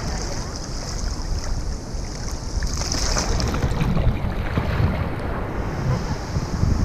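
Seawater sloshing and washing over a waterproof action camera held at the surface, as small waves pass: a continuous muffled rushing with low rumble.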